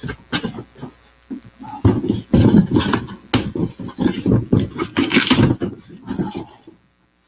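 Cardboard shipping box being opened and unpacked: scraping, rustling and knocking of cardboard, busiest in the middle and stopping shortly before the end.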